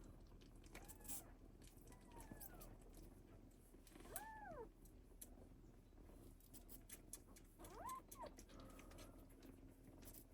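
Faint cat mews, several short calls that rise and fall in pitch, the clearest about four seconds in and another near eight seconds, with faint scattered clicks between them.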